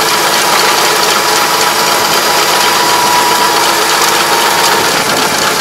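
Tractor-mounted Kobashi Gaia rotary ditcher cutting a ditch at a field edge: its spinning disc and gearbox give a steady, loud mechanical clatter with a constant whine over the ISEKI tractor's engine.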